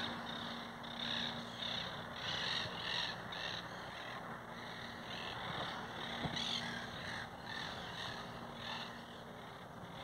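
A flock of monk parakeets chattering: shrill, harsh calls in irregular bursts.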